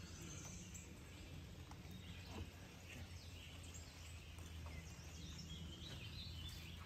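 Faint outdoor ambience: scattered bird chirps over a steady low hum.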